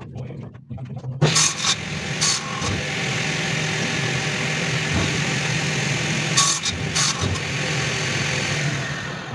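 A workshop machine's electric motor starts about a second in and runs steadily, with a low hum. Several sharp knocks of wood being handled fall on top of it.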